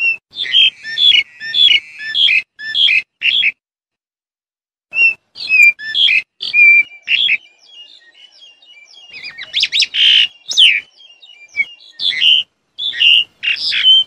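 Black-collared starling calling: a run of short, loud calls, a pause of about a second and a half, then more calls building into a faster, denser chatter around ten seconds in, followed by further single calls.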